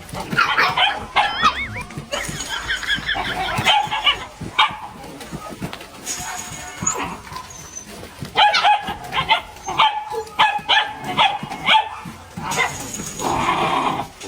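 Dog whining and yipping in short, pitch-bending calls, in two bouts, one at the start and one from about eight seconds in.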